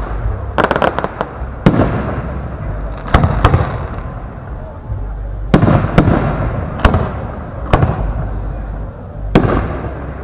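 Large category 4 aerial firework shells bursting: about eight sharp bangs, each trailing into a rolling echo.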